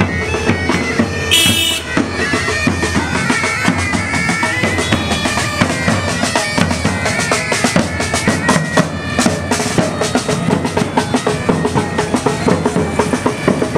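Pipe band playing: bagpipes carry a tune over a steady drone, with bass and snare drum beats.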